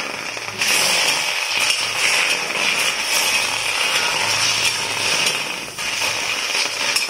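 Chicken liver, onion and garlic sizzling steadily in a hot stainless steel wok, dry-frying without oil, with a metal spoon scraping and clicking against the pan as it is stirred.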